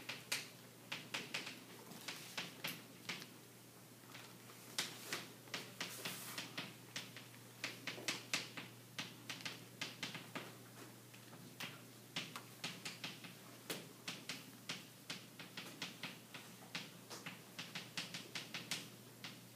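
Chalk tapping and scratching on a blackboard as words are written: quick irregular clicks, several a second, with a short lull about four seconds in, over a faint steady room hum.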